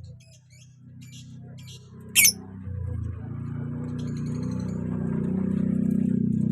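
Lovebird chirping in short high notes, with one loud, sharp shrill call about two seconds in. Under it a low steady hum swells from about three seconds in and grows louder.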